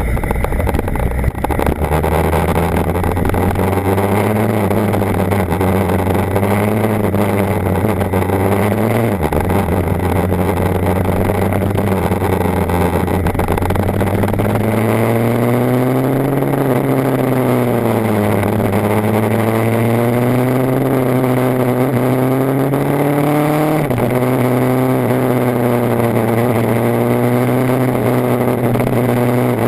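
BMW HP4's inline-four engine running under way, its pitch rising and falling with the throttle. The note drops suddenly about nine seconds in and again near 24 seconds, then climbs again.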